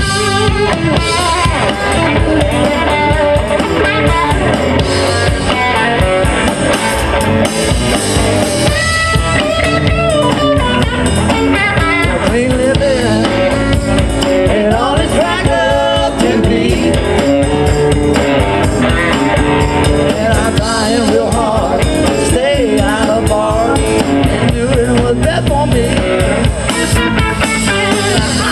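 Live band playing an instrumental stretch with no lyrics sung: electric guitars over bass guitar and a drum kit, with bending, wavering guitar lines.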